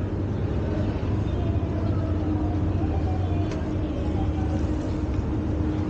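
Steady city street traffic drone with a low engine hum and a held tone. Faint voices sit in the background, and there is one short click about three and a half seconds in.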